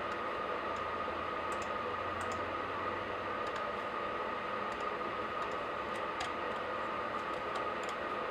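Scattered clicks from a laptop keyboard and a computer mouse, about a dozen over several seconds, over a steady background hiss.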